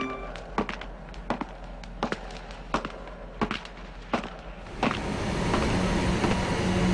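Seven sharp knocks, evenly spaced about one every 0.7 seconds, some of them doubled. About five seconds in, a steady hiss with a faint low hum rises.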